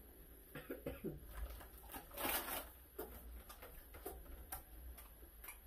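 Quiet handling of fast-food paper packaging at a table: soft rustles, small clicks and taps, with a louder paper rustle a little over two seconds in.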